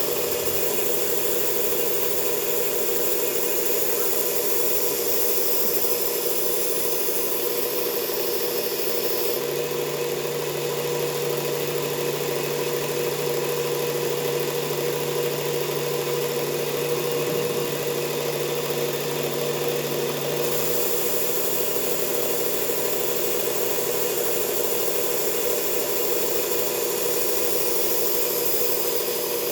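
Belt grinder with a coarse abrasive belt running steadily while a Ka-Bar 1266 tanto blade is ground in passes against it to raise a burr. For about ten seconds in the middle a lower hum joins the steady running.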